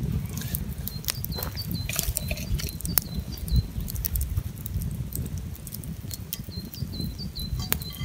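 Wood campfire burning under a skillet: irregular crackles and pops of the burning sticks over a steady low rumble of flames. A bird chirps a quick series of high notes in the background, once near the start and again near the end.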